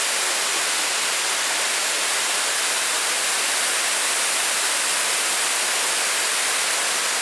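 Steady rush of water pouring over a dam into a creek running at good flow, an even hiss that doesn't change.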